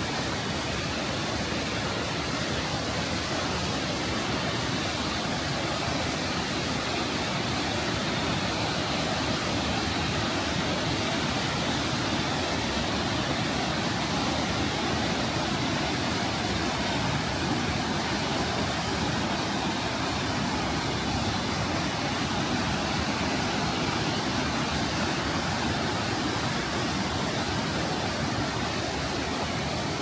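Kegon Falls and the cascading rapids below it: a steady rushing of falling and tumbling water that does not change.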